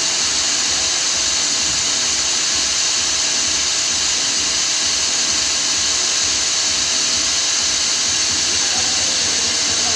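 Steady, loud mechanical hiss, strongest in the high range, with a faint low rumble underneath; it does not change.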